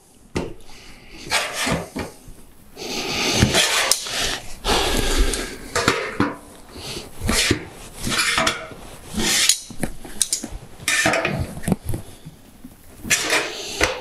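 Coated sheet-metal standing-seam flashing part being bent and straightened with hand seaming pliers: irregular metallic clanks, scrapes and rattles of the sheet as the small seam fold is adjusted.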